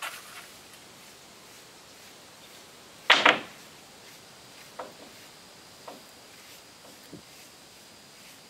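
A paintbrush working varnish over a wooden wall, with a few faint scrapes and one sharp double knock about three seconds in.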